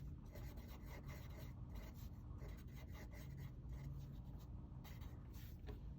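Sharpie marker drawing on paper in a run of short, quick strokes, each a faint scratch of the felt tip.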